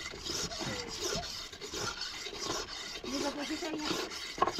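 Repeated rough rasping strokes, a scraping or rubbing sound that goes on steadily, with faint voices in the background.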